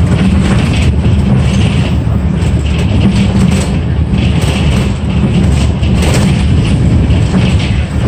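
City bus under way, heard from inside the cabin: a steady low engine and road rumble.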